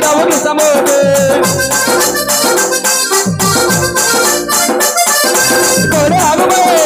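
A procession band of shoulder-slung cylindrical drums beaten with thin sticks, playing a fast, driving rhythm, with a pitched melody line over the drumming.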